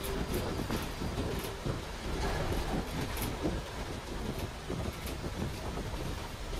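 GSRTC AC 2×2 luxury coach under way: steady road and engine rumble with a few light rattles and clicks.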